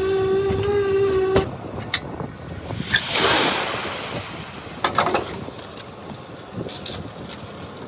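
Electric concrete needle vibrator running with a steady whine, cut off abruptly just over a second in. It is followed by quieter sounds of wet concrete work: a rushing hiss of concrete sliding about three seconds in, and a few scrapes and knocks.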